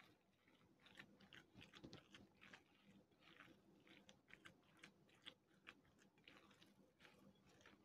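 Faint, irregular squishing and crackling of hands kneading a raw ground-meat and grated-potato cutlet mixture in a glass bowl.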